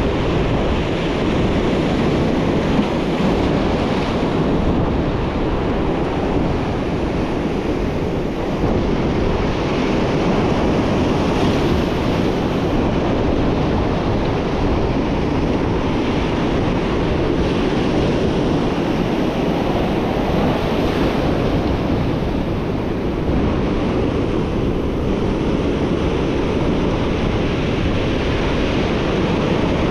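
Rough ocean surf breaking against and washing over shoreline rocks, a steady rushing noise, with wind on the microphone.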